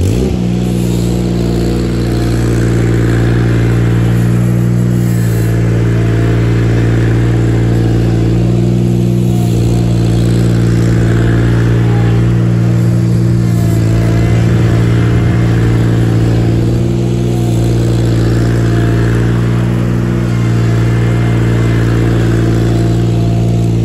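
Ventrac articulating tractor's engine running steadily at a near-constant speed, with slight shifts in pitch, as the tractor rolls back over a freshly ground stump hole to pack down and level the grindings.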